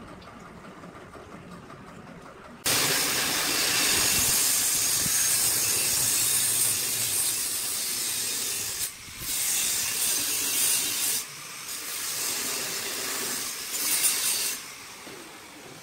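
Angle grinder with an abrasive cut-off disc cutting through curved steel tube: a loud, steady hiss that starts suddenly about three seconds in, dips briefly twice, and stops near the end.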